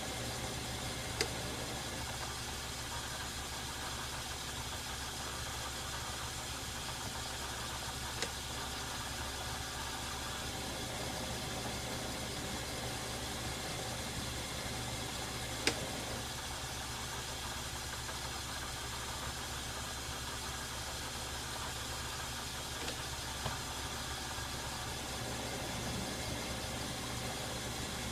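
Metal lathe running slowly in back gear at about 65 RPM while cutting a thread in steel: a steady motor and gear hum, with a few short sharp clicks, the loudest about halfway through.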